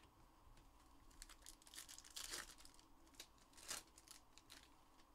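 Faint crinkling and rustling of trading-card packaging being handled, in short scattered spells, loudest about two seconds in and again near four seconds.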